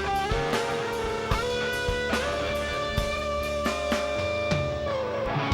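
Live rock band playing: electric guitar holding long notes that step up in pitch and slide down near the end, over steady drum hits.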